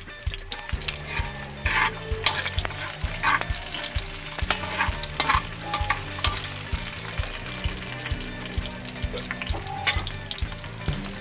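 Sliced onion and garlic sautéing in hot oil in a metal wok, sizzling steadily, with a spatula stirring and scraping the pan in several short strokes.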